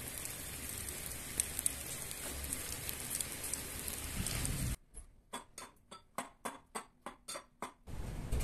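Steady rain falling with a fine crackle of drops. About two-thirds of the way through, it cuts to a quick run of about a dozen sharp taps, around four a second, over near silence. After about three seconds the rain comes back.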